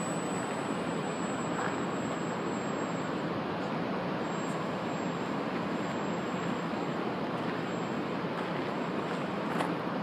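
Steady, even background noise of distant city traffic, with no distinct engine or motor sound standing out.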